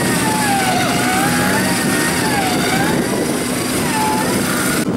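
Off-road 4x4 engine revving, its pitch rising and falling several times over a steady low engine hum, cut off abruptly near the end.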